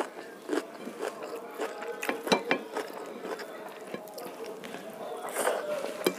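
Fingers mixing cooked rice on a plate: soft squishing with irregular small clicks and scrapes of fingertips against the plate, busiest about two seconds in.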